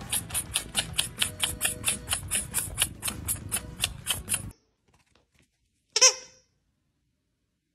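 A quick run of sharp clicks, about five a second, stops abruptly. After a short silence comes one loud, brief squeak from a dog's rubber squeaky toy being bitten.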